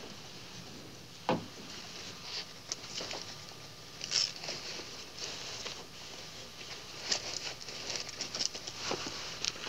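Rustling and small clicks of a beaded handbag being opened and searched through by hand, with one sharper click about a second in.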